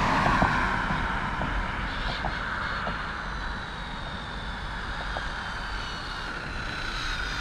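A van passes on the road at the start with a rush of tyre noise; then the thin, high whine of an 8S-powered Infraction RC truck's brushless motor at speed down the road, slowly falling in pitch over steady road noise.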